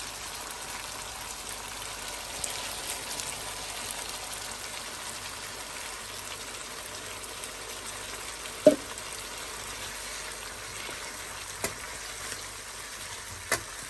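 Potatoes in tomato gravy sizzling steadily as they fry in a karahi pan. A few sharp knocks of a wooden spoon against the pan, the loudest about two-thirds of the way in.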